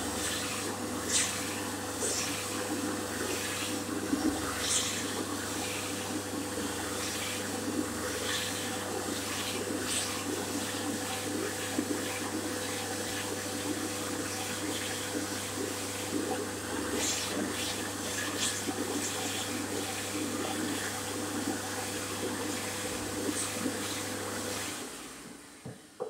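Hyco push-button hand dryer running: a steady rush of warm air over a constant motor hum. About a second and a half before the end, it cuts out and winds down, with a few faint clicks over the airflow before that.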